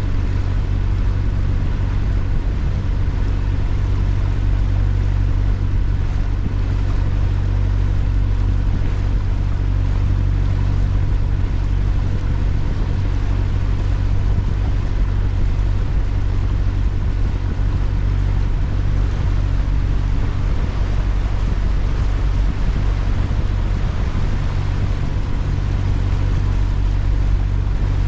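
Boat taxi's engine running steadily, heard from on board as a constant low drone.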